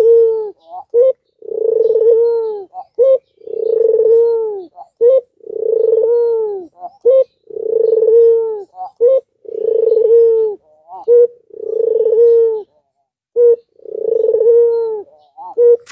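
Albino Barbary dove (white domestic ringneck dove) giving its bow-coo: a long rolling coo roughly every two seconds, each followed by a short clipped note.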